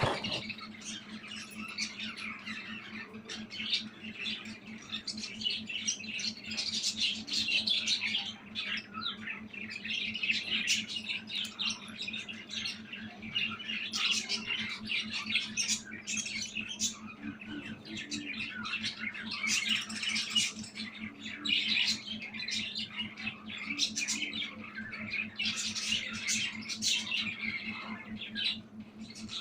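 Budgie chattering: a continuous stream of short chirps and squawks with no pause, over a steady low hum.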